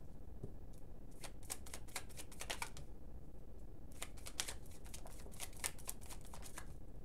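Tarot cards being shuffled by hand: a quick run of light flicking clicks from the card edges, a pause, then a second run.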